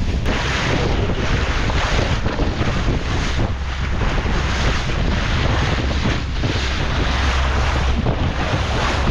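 Steady wind buffeting the microphone on a boat at sea, mixed with the rush of water along the hull.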